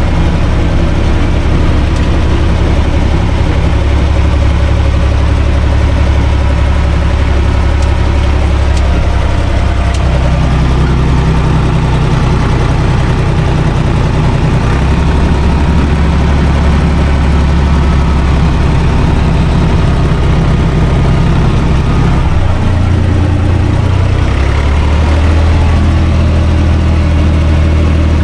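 UTB Universal 445 DT tractor's four-cylinder diesel engine running steadily under load while tilling with a rear rotary tiller, heard from inside the cab. The engine note shifts about 10 seconds in and again about 22 seconds in.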